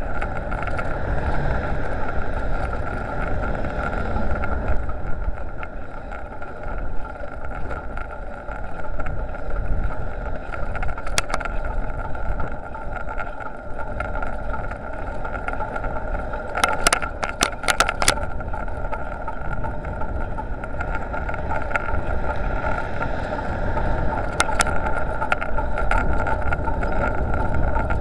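Wind and road rumble on the microphone of a bicycle-mounted dashcam while riding, under a steady high whine. A few sharp clicks and rattles come about two-thirds of the way through, and a couple more near the end.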